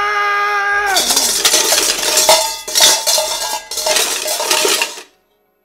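A drawn-out yell, then about four seconds of metal cutlery clattering and clanging, with several sharp louder clashes. It cuts off abruptly.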